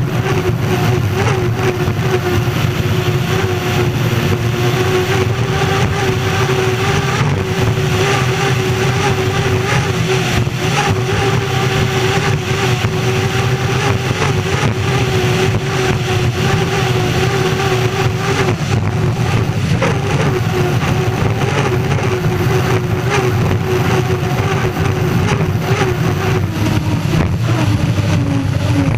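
Unlimited hydroplane's gas turbine engine running hard at racing speed, heard onboard as a steady high whine over a dense rush of noise. Near the end the whine drops in pitch as the power comes off.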